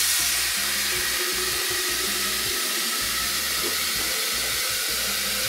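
Kitchen tap running in a steady stream, filling a coffee pot with water at the sink.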